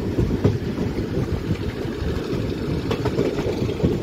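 Passenger train running along the track, heard from inside the coach: a steady low rumble from the wheels and track, with a few short clicks.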